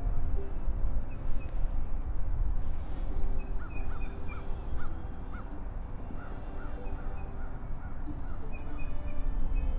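Outdoor ambience with a steady low rumble, crossed by two runs of short, evenly repeated high calls from an animal, each run lasting about two seconds.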